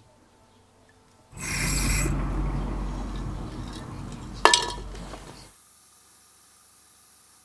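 Aerosol spray-primer can spraying: a hiss of about four seconds, sharpest at the start and then fading, with a sharp metallic clink near its end. After it cuts off, a faint steady hum remains.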